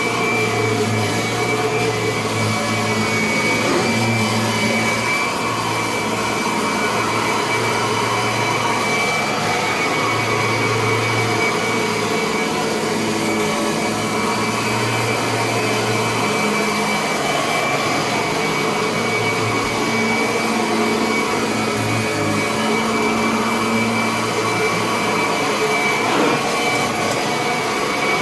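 Kirby upright vacuum cleaner running continuously at a steady, high-pitched motor whine, with slight swells in its low hum as it is pushed across the floor.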